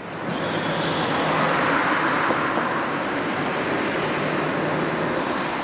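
Street traffic noise: a steady rush of tyres and engines on an asphalt road, rising at the start and holding even.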